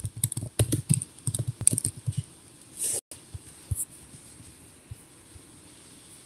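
Typing on a computer keyboard: a quick run of keystrokes for about three seconds, then a few scattered key clicks. The sound cuts out for an instant about three seconds in.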